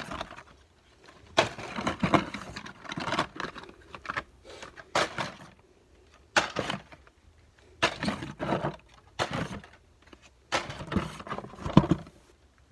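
Carded Hot Wheels cars being handled and pulled out of a cardboard shipping case: plastic blister packs and card backs rustling, scraping and knocking against the cardboard in irregular bursts with short pauses.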